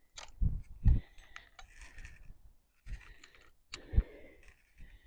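Small clicks and taps of fishing tackle being handled at close range, with a few dull knocks, the loudest about four seconds in.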